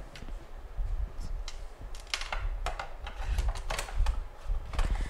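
Irregular clicks, scrapes and light knocks of a Phillips screwdriver driving screws into the plastic case of a water booster pump as it is handled and reassembled.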